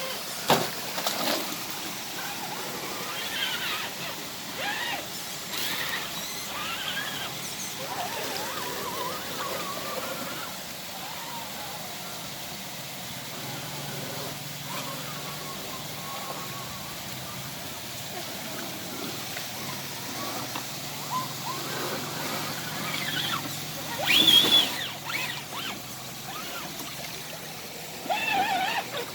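Rushing and splashing river water around an off-road vehicle in the river, with a faint low engine hum through the middle and scattered voices calling out, loudest about 24 seconds in.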